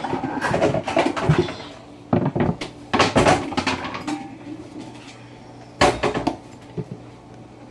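Kitchen clatter: a cupboard being opened and closed and kitchenware knocking and rattling, in three bunches of knocks, about half a second in, two to three and a half seconds in, and again around six seconds in.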